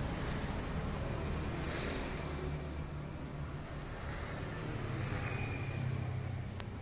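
Large KDK ceiling fan coasting down toward a stop: a steady low hum with air noise, slowly fading, and a faint tick near the end.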